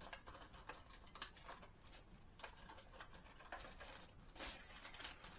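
Faint, irregular light clicks and rustles of soft-plastic swim-bait fishing lures and their packaging being handled.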